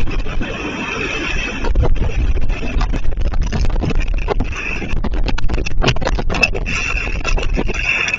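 Strong storm wind gusting against the microphone, a loud continuous roar with deep rumbling buffeting that swells and dips from gust to gust.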